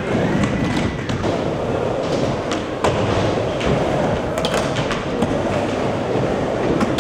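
Skateboard wheels rolling over a wooden ramp with a steady rumble, broken by several sharp clacks of the board, the loudest about three seconds in.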